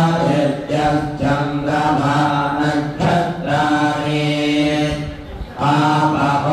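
Hindu priests chanting Sanskrit mantras over a microphone for the tulasi leaf offering, their voices held on steady pitches, with a short dip about five seconds in before the chant resumes.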